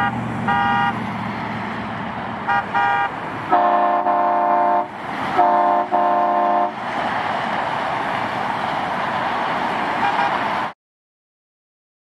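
Air train horns mounted on a bicycle, sounded in blasts: a few short, higher toots, then three longer blasts of a deeper multi-note chord near the middle, over a steady outdoor hiss that cuts off shortly before the end.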